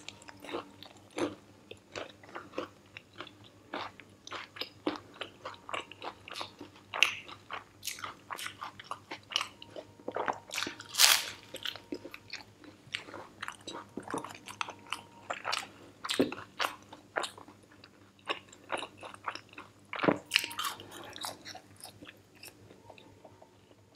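Biting and chewing of a crunchy fried taco-like shell with chicken filling (Burger King Crunchy Chicken Volcano): a run of irregular crisp crunches, with several louder bites among them.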